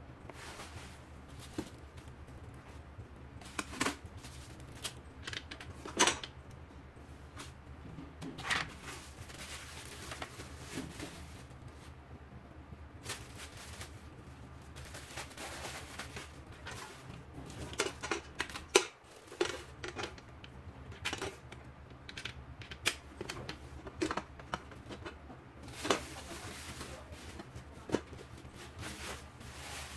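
Irregular clicks, knocks and plastic rustles of a stand mixer being handled: its steel bowl, whisk and tilting head moved and fitted, and its plastic wrapping crinkled. A steady low hum runs underneath.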